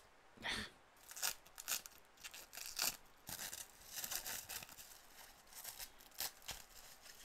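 Clear plastic shrink wrap being picked open and torn off a paperback manga volume: irregular crinkling and tearing in many short crackles.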